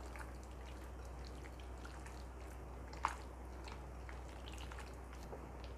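Faint wet squishing of hands kneading raw boneless chicken pieces through a thick egg-and-cornflour marinade in a glass bowl, with soft scattered ticks and one sharper click about three seconds in.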